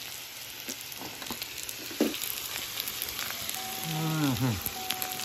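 Food sizzling and crackling on a hot hibachi grill plate, with scattered pops. There is a sharp knock about two seconds in and a short falling pitched sound about four seconds in.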